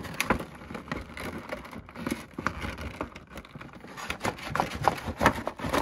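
Cardboard box and clear plastic packaging tray being handled and pulled at, with irregular crackles, clicks and knocks as the stuck tray is worked against the box.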